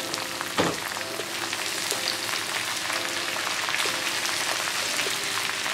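Sliced chillies and green tomatoes sizzling in oil in a wok, with a spatula stirring through them. There is one sharp knock a little after half a second in.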